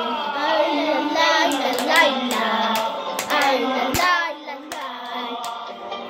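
Two boys singing a Bolivian patriotic song, with a scattering of sharp clicks through the middle, the loudest a knock about four seconds in.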